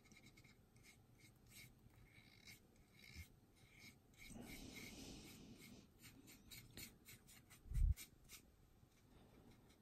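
Faint, quick scratchy strokes of a small paintbrush working oil streaking paint over the plastic surface of a scale-model aircraft. A dull low thump comes about eight seconds in.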